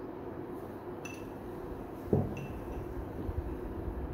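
Small glass bowls and a spoon clinking against the mixing bowl and the table as ingredients are tipped in: a few light clinks with a brief ring, and one louder knock about two seconds in, over a steady low hum.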